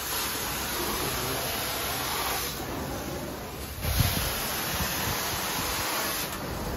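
Carpet-cleaning extraction wand being drawn across carpet, its vacuum suction making a steady hiss that twice loses its high part for about a second. A single knock about four seconds in.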